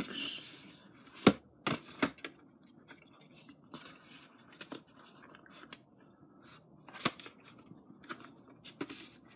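Blu-ray disc cases and their box set being handled and put back into the box: a short rustle, then sharp plastic clicks and knocks, three in the first two seconds and a few more near the end.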